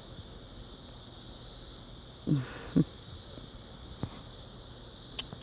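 Crickets chirring steadily in the background. About halfway through come two short, breathy sounds close to the microphone, the first falling in pitch, and there are a couple of faint clicks later on.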